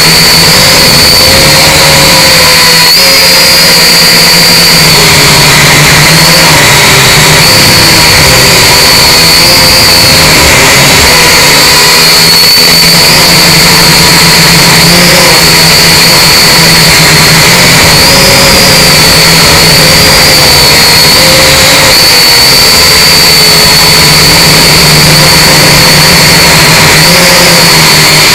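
Syma X5C quadcopter's small brushed motors and propellers whining, loud and close through the drone's own onboard camera. The pitch wavers up and down as the motor speed changes.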